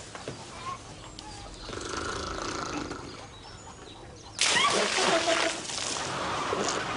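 A man snoring, then about four and a half seconds in, a sudden loud splash of water thrown over him that lasts a couple of seconds.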